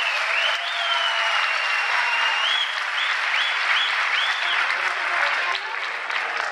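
Audience applauding in a hall, with a shrill whistle over the clapping: first held, then rising and falling several times. The applause eases off near the end.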